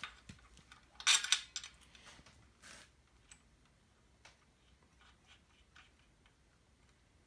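Small clicks and rattles of steel bolts and square nuts being handled and threaded into a plastic mounting bracket, with a louder burst of clicking and rustling about a second in.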